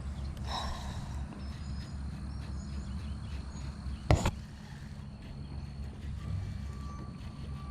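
Low, steady outdoor rumble with faint bird chirps, broken about four seconds in by one sharp knock, the loudest sound.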